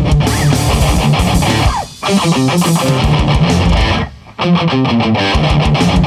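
Death metal instrumental passage: distorted electric guitar riffing over bass guitar, with the band cutting out briefly twice.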